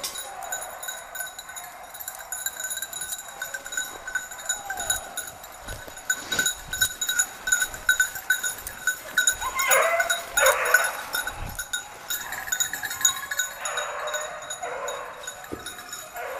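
A small bell on a hunting dog jingles steadily in quick, even shakes. In the second half, basset griffon vendéen hounds give two short bouts of baying.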